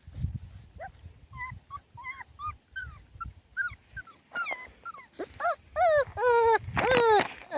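Young puppies whimpering: a string of short, high whines that grow into louder, longer drawn-out cries about five seconds in. Soft low bumping sounds sit under the first few whines.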